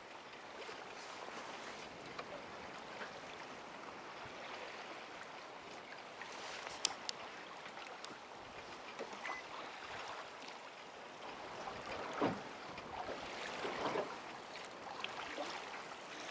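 Steady wind noise and water lapping around a small boat on a river, with a few light clicks about seven seconds in.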